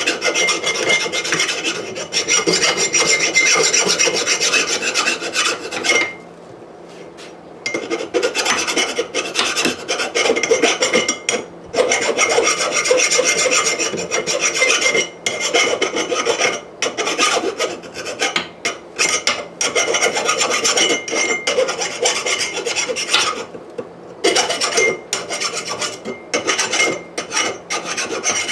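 Rasping, abrasive working of the steel anvil's edges as the sharp edges are smoothed down, going on in uneven strokes with short breaks and one longer pause about six seconds in.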